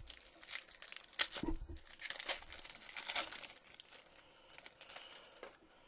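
Foil wrapper of a Topps Chrome football card pack being torn open and crinkled by hand: a run of sharp crackles, loudest in the middle and thinning out near the end.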